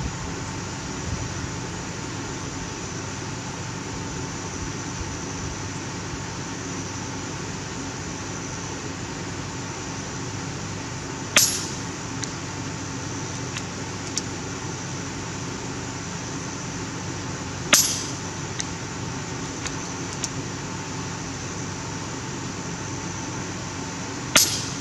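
Three shots from an FX Impact .30-calibre PCP air rifle, each a sharp crack, roughly six seconds apart, with a few light clicks between shots, over a steady background hiss.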